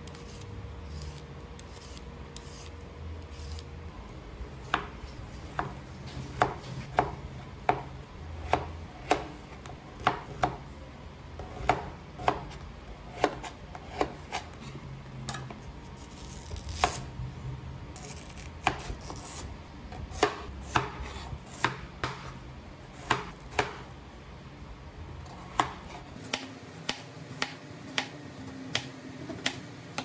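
A long run of short, sharp knocks, irregular at roughly one to two a second, beginning a few seconds in over a low steady hum.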